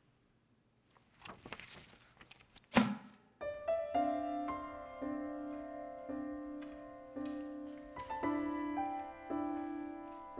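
A brief rustle and a single sharp thump, then gentle background piano music with a low note repeating about once a second under a slow melody.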